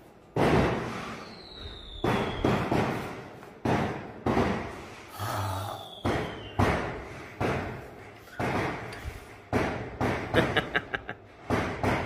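A string of loud, sudden bangs that sound like gunshots, coming irregularly about once or twice a second, each dying away with a short echo. A faint falling whistle sounds twice among them.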